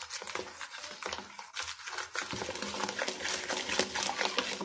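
Wire whisk stirring a thin, milky yeast batter in a plastic bowl, with quick, irregular clicks and splashing as it mixes the starter for a pizza dough.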